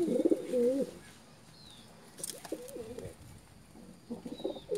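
Domestic pigeons cooing in three bouts, the loudest right at the start, a shorter one in the middle and another near the end.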